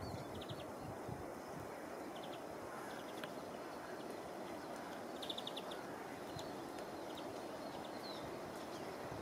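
Outdoor background ambience: a steady low rush of noise, with faint, short, high chirps from small birds several times.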